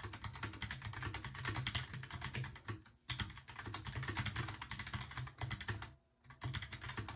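Continuous fast typing on a Logitech Pop Keys mechanical keyboard with tactile brown switches and round keycaps, a dense clatter of key clicks broken by two short pauses, about three and six seconds in. Recorded through an iPhone's microphone.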